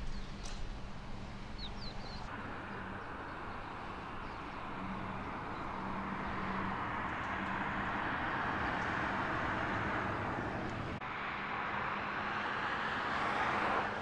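Outdoor road traffic noise: cars passing on a road, a steady rush that swells and eases. A few short high chirps near the start.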